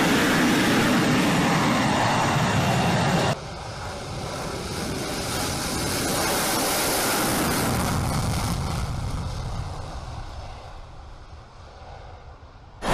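Fighter jet engine noise in two edited takes. A loud, steady jet noise cuts off suddenly about three seconds in. Then an F-22 Raptor's engines on its takeoff roll swell to a peak and fade away as it moves off down the runway.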